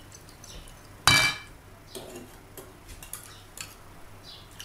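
Metal kitchen utensils clinking against a glass mixing bowl: one loud, ringing clink about a second in, then a few lighter taps.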